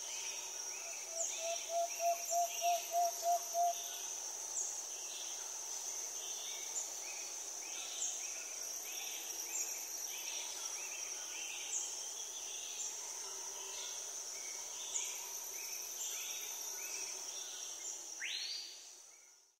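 Nature ambience of birds and insects: a steady high insect drone with short bird chirps repeating throughout, and a quick run of about nine low notes near the start. A single rising call sounds near the end, and then the ambience fades out.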